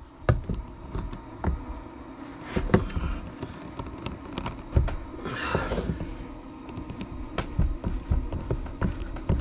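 Scattered clanks, knocks and low thumps of metal tools on a wooden workbench as a pipe wrench is levered against a stuck threaded part in a differential case, which does not break free. A short rustle about five and a half seconds in.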